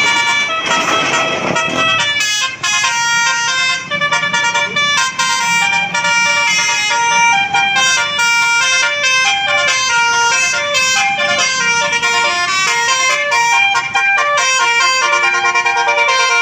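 A bus's telolet musical air horn plays a tune: several horn tones sound at once and step from note to note without a break. A rushing noise sits under the opening two seconds.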